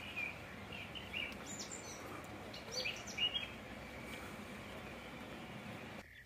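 Small birds chirping in short phrases, a few calls about a second in and again around three seconds in, over a steady outdoor background hiss. The background drops away abruptly just before the end.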